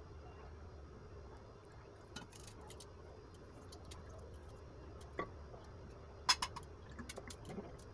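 A spoon stirring a pot of simmering gravy, knocking lightly against the pot with scattered clinks. The loudest pair of clinks comes a little after six seconds in, over a low steady hum.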